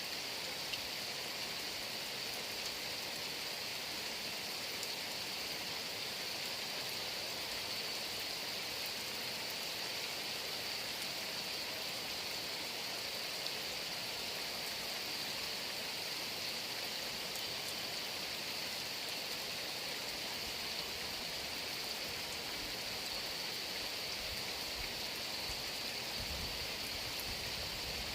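Heavy rain falling steadily, an even rushing hiss with a few scattered drop ticks.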